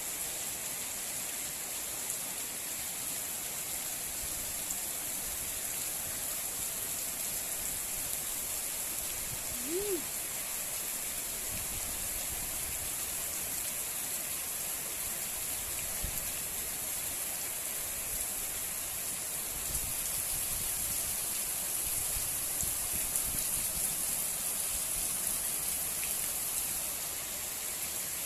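Heavy rain falling steadily, an even hiss throughout. About a third of the way in there is a short call that rises and falls in pitch.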